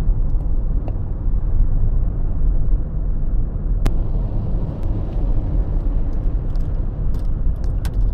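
Steady low rumble of road and engine noise inside a moving car's cabin, with a single sharp click about four seconds in.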